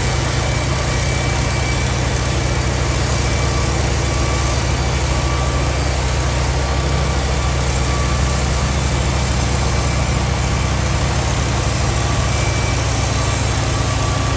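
An engine running steadily at constant speed, a low even drone with no change in pitch or load.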